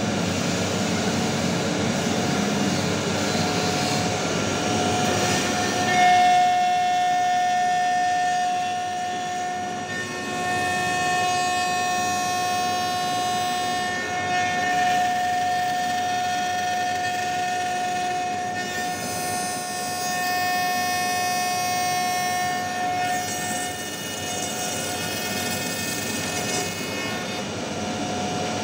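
CNC router spindle running at high speed with its bit milling into the edge of a plywood panel: a steady high-pitched whine over the rasp of cutting wood. The whine comes up strongly about six seconds in and eases back a few seconds before the end.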